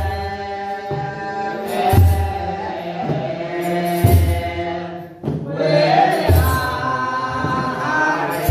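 A group of men chanting an Ethiopian Orthodox wereb hymn in Ge'ez, with a deep kebero drum stroke about every two seconds. The singing briefly drops out a little past halfway.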